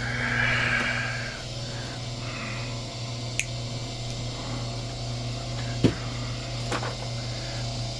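Copper wire being handled at a wire stripping machine over a steady low hum: a scraping rustle in the first second or so, then a few sharp clicks and knocks, the loudest about six seconds in.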